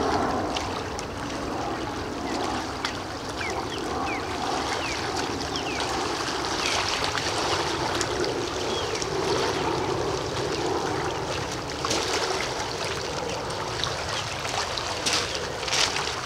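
Steady wash of small river waves lapping on a pebble shore, with a few crunching footsteps on gravel near the end.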